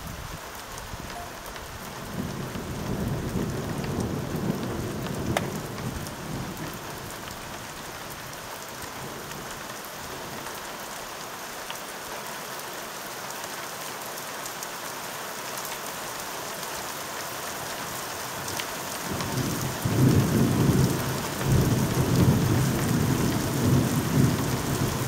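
Steady rain falling, with thunder rumbling twice: a softer roll a couple of seconds in and a louder, longer roll beginning about three-quarters of the way through and running on.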